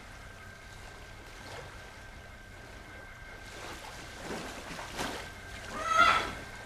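Water waves lapping and washing, with swells of surge about two-thirds of the way through. Near the end a short, loud pitched cry cuts across the water sound.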